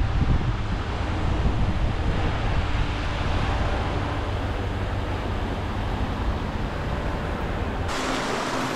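Wind buffeting the microphone over the wash of surf. Near the end the low rumble drops away and the hiss of breaking waves takes over.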